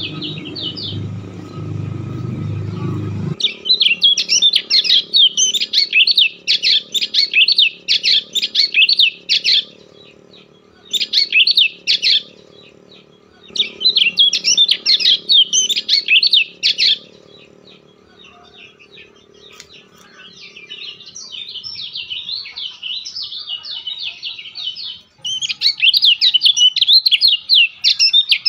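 A bird chirping in rapid chattering phrases of quick high notes, a few seconds each with short pauses between, over a low steady hum. A louder low rumble underneath stops abruptly about three seconds in.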